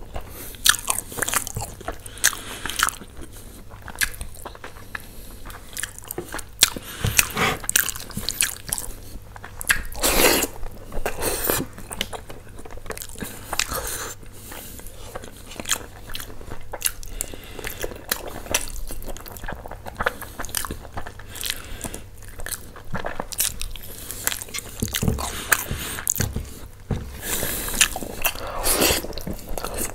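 Close-miked eating sounds: a person biting and chewing a meal of tandoori chicken, butter chicken and naan, with many irregular mouth clicks and a few louder bites about ten seconds in and near the end.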